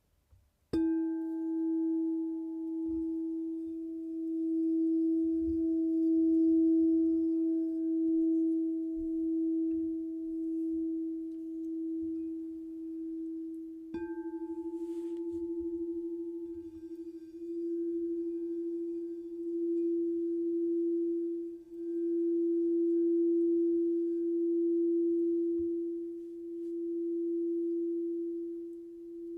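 Singing bowl struck twice, about a second in and again about halfway through. Each strike starts a long, steady ringing tone that slowly swells and fades in waves as it sustains.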